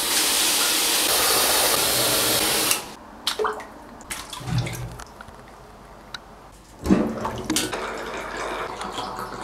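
Water running hard into a bathtub, cutting off sharply about three seconds in. After that, lighter splashing and a thin stream running toward the drain, with a couple of dull thumps.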